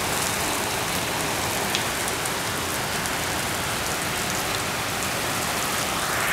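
Heavy rain pouring onto a concrete driveway, lawn and parked pickup truck: a steady, even hiss with the odd sharper drop tick.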